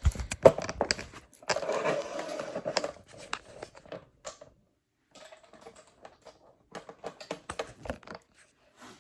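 Close handling noise: irregular clicks and knocks, with a stretch of rustling about one and a half to three seconds in, then scattered lighter clicks.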